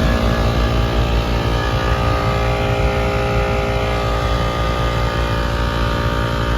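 Rooftop HVAC package unit running: a steady mechanical hum with several held tones over a constant low rumble.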